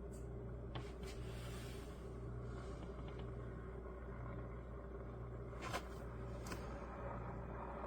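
Chefman 1.8 L 1500 W electric kettle heating water toward the boil: a low, steady rumble with a few faint ticks, the sharpest about six seconds in.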